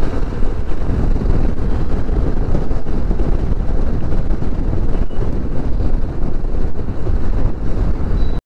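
Wind rushing and buffeting over the microphone of a motorcycle ridden at about 50 to 60 km/h, with the bike's engine and road noise underneath.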